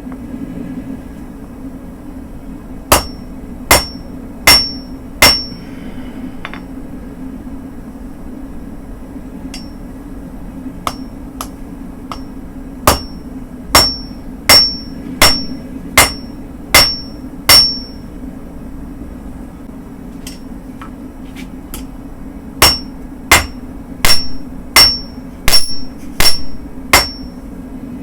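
Hand-forging hammer blows on steel at an anvil, in three runs of four to eight strikes about three-quarters of a second apart, each blow ringing high. Lighter single taps fall between the runs, over a steady low hum.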